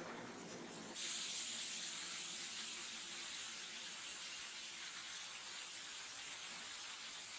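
A streetcar passing close by for about the first second, then an abrupt change to a steady hiss that slowly eases off.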